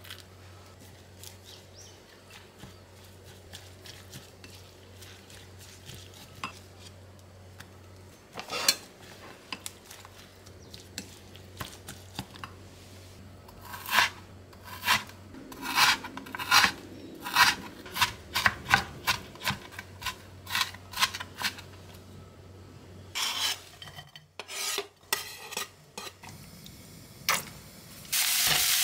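Chef's knife chopping pork on a cutting board: a run of sharp knocks about two a second, after quieter scraping and handling of kitchenware. Near the end the diced pork starts sizzling loudly in a hot frying pan.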